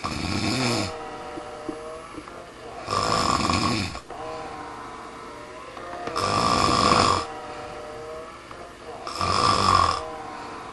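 A person snoring: four loud snores, each about a second long, coming about every three seconds.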